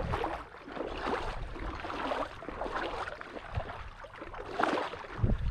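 A person wading through shallow marsh water, legs swishing and splashing through it in uneven surges with each stride.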